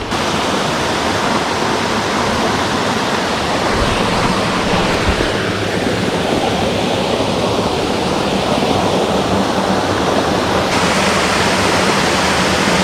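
Steady rush of stream water pouring over a small concrete check dam into the pool below.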